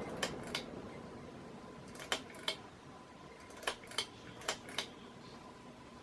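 Vintage NuTone Verandah Deluxe ceiling fan running with a steady whoosh that fades as it slows. Over it come four pairs of sharp metallic clicks.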